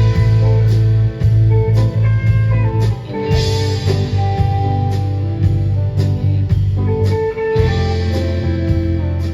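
Instrumental passage of a band song: guitar lines over bass and a steady drum beat, with no vocals.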